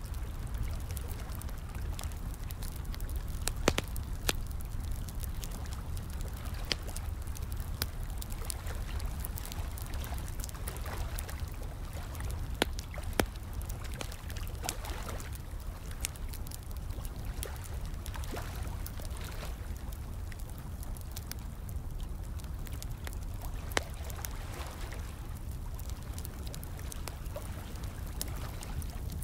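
Fire crackling, with sharp pops scattered every few seconds, over a steady flow of running water.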